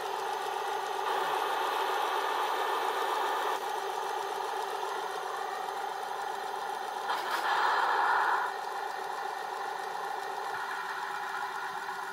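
Airsoft tank running: a steady mechanical hum with a rattle, which swells louder for about a second and a half past the middle.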